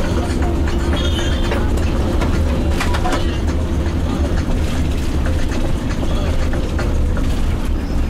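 Steady low rumble of a bus's engine and tyres on a rough dirt road, heard from inside the cabin, with a brief high chirp about a second in.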